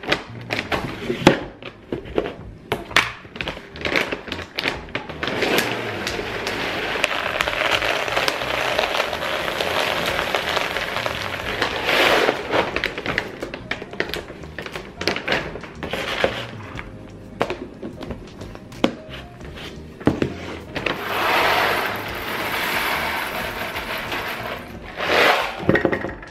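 Dry cat food kibble poured from its bag into a plastic storage container: a long, continuous pour of several seconds starting about five seconds in, with scattered clicks of the bag and container being handled.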